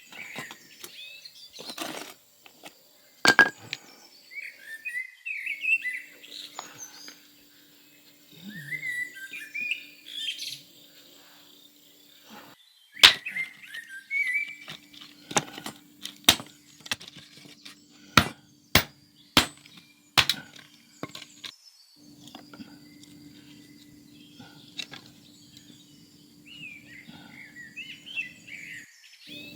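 Small birds chirping and twittering in short phrases on and off. A run of about seven sharp clicks or knocks comes in the middle, and a faint steady hum sits underneath.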